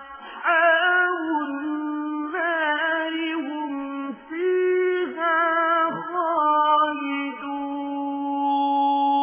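Quran recitation: a single voice chants in melodic tajweed style, gliding through ornamented phrases with brief breaths between them and ending on a long held note.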